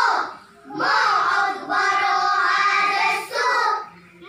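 A group of young children chanting a recitation in unison in Arabic, with a short pause about half a second in and then one long sustained phrase.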